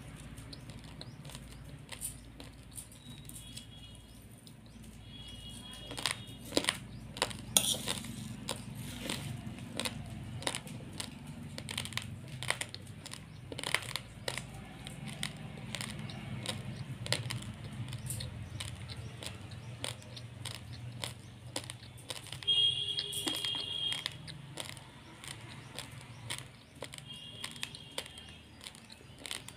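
Raw basmati rice grains being chewed and crunched: a long run of sharp, crisp cracks at an uneven pace. A few brief high chirps sound now and then.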